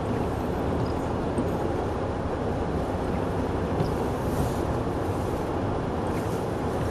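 Car driving slowly over a snow-covered road, heard from inside the cabin: a steady rumble of engine and tyre noise.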